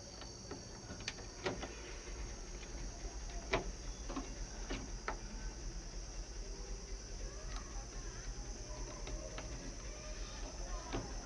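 Faint clicks and taps at irregular intervals over a steady faint hiss.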